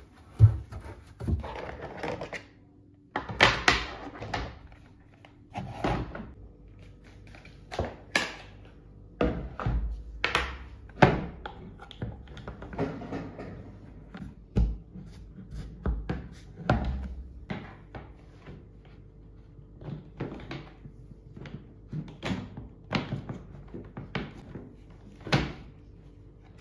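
Hard plastic parts of a white two-tier shelf rack knocking, clicking and thudding as they are handled, fitted together and set down on a table; the knocks come irregularly, one or two every second or so.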